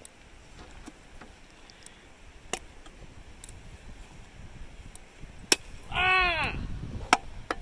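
A bat cracks sharply against a can about five and a half seconds in, followed at once by a short rising-and-falling whoop from a person and wind rushing over the microphone. A few faint knocks come before it.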